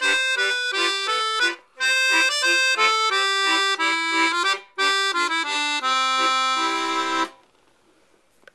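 Piano accordion playing a Scottish strathspey tune in quick phrases with two brief breaks, then closing on a long held chord that stops about seven seconds in.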